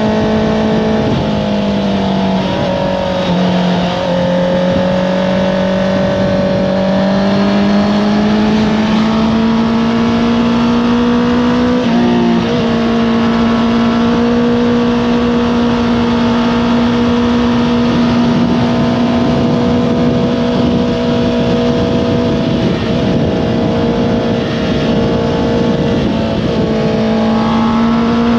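Honda CBR650R inline-four engine with an Akrapovič exhaust running under way at fairly steady revs, with a few brief dips in pitch and a rise near the end, over wind noise.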